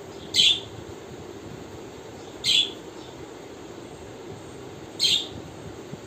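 Budgerigar giving three short, sharp chirps about two and a half seconds apart, over a steady low background hum.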